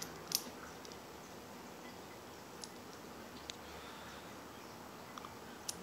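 A few faint, scattered clicks of a metal bipod rail-mount adapter being handled and worked in the hands, the loudest about a third of a second in, over quiet room tone.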